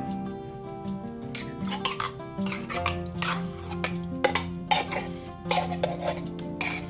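A spoon scraping and clinking against a bowl while stirring thick cream of chicken soup into shredded chicken, with many short knocks. Soft background music with held notes plays underneath.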